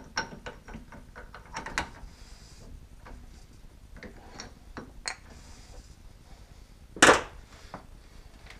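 Scattered metal clicks and knocks of a 5C collet spindle adapter being worked loose and pulled out of a lathe spindle through a four-jaw chuck, with one loud clank about seven seconds in.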